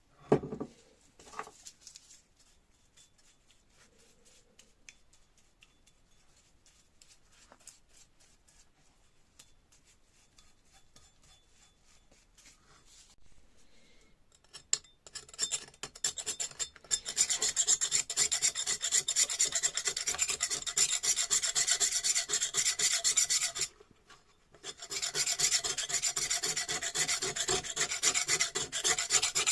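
A knock or two at the start, then quiet, then from about halfway rapid abrasive rubbing strokes against the hydraulic jack's metal parts, stripping old paint and corrosion. The strokes pause briefly near the end.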